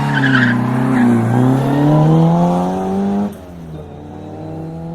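Rally car engine accelerating hard away from the start line, its pitch climbing steadily for about three seconds before the sound drops away suddenly; a quieter engine note then rises again near the end.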